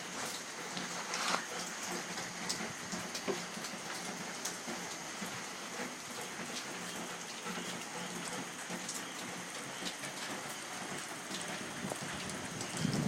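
Steady rain falling, with scattered drips and taps.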